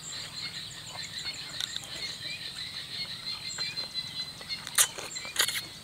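Close-up eating sounds: two sharp, wet slurps near the end as a mouthful of noodles and papaya salad is sucked in. Underneath, a steady high insect drone and scattered bird chirps.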